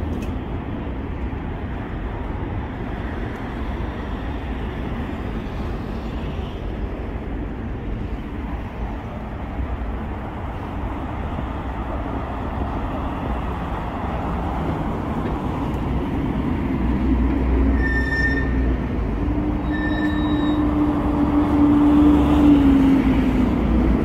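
Busy street ambience with a steady traffic rumble. From about two-thirds of the way in, a vehicle's engine hum gets louder, peaks and fades near the end, with two short high beeps about two seconds apart.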